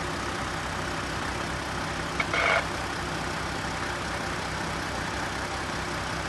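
A vehicle engine idling steadily, with a short click and hiss about two seconds in.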